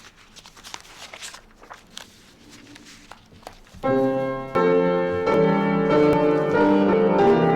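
Faint clicks and rustles, then about four seconds in a piano starts playing sustained chords, moving from chord to chord.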